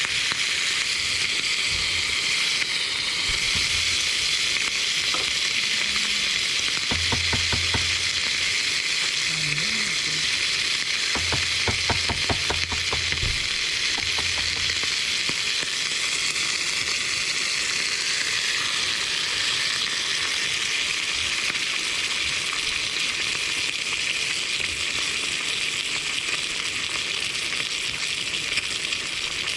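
Food sizzling steadily in a hot frying pan, with two short runs of quick clicks, about seven seconds in and again around twelve seconds, as it is stirred or turned.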